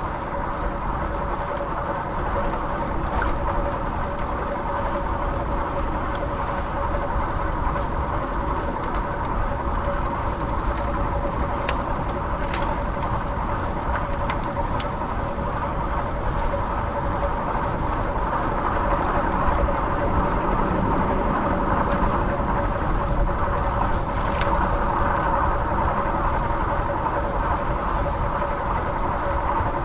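Steady road and wind noise from riding a fixed-gear bicycle, with a constant hum underneath and a few sharp ticks.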